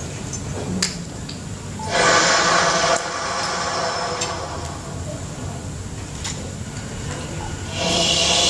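Conch shell and bass clarinet playing free improvisation, with airy, breathy sounds rather than clear notes. A loud blast comes in about two seconds in and cuts off sharply a second later, quieter breathy playing follows, and another loud blast begins near the end.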